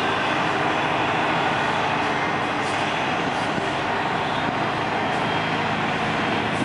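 Semi truck's diesel engine running as the truck pulls slowly in, a steady noise without pauses.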